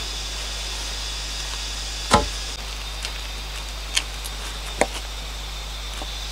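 A bamboo pole being knocked and pushed down into a hole in the ground: three short knocks, the first and loudest about two seconds in, then two lighter ones about two and three seconds later, over a steady high hiss.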